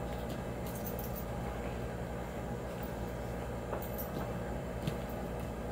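Steady low room hum, like an air conditioner, with a few faint rustles and light taps as an open-face helmet is pulled on and worked down over the head.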